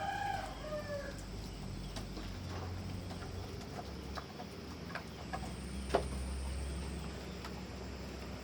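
Rain ambience: scattered drips and taps over a steady low hum, with a sharper tap about six seconds in. It opens with a short animal call in the first second.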